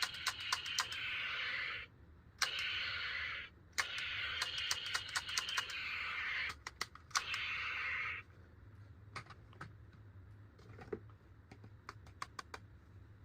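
Toys and plastic packaging being handled: several stretches of hissy rustling or scraping, each a second or two long and broken by many small clicks. After about eight seconds only a few scattered clicks remain.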